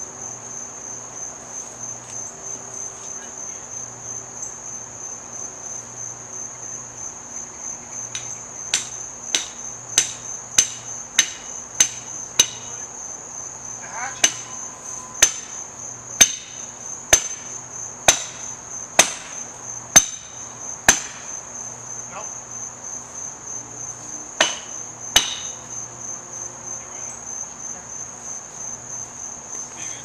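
Sharp, ringing hammer blows, about seventeen in three runs roughly a second or less apart, starting about nine seconds in and ending about twenty-five seconds in. Under them, insects keep up a steady high drone.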